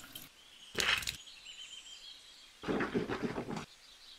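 Outdoor ambience with faint bird chirps, broken by a short noisy burst about a second in and a longer rustling patch near three seconds.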